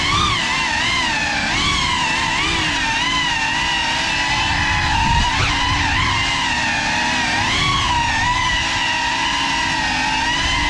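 Cinelog35 FPV cinewhoop drone's brushless motors and ducted propellers whining steadily, the pitch rising and falling repeatedly as the throttle changes in flight.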